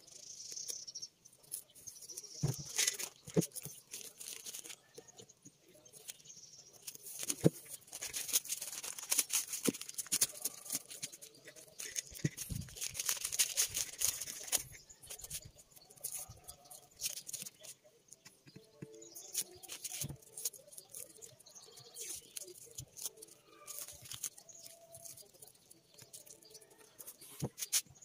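Masking tape and paper being peeled by hand off a freshly painted metal fire extinguisher: crackling tape, crinkling and tearing paper, with small ticks and taps. The rustling is densest in the middle.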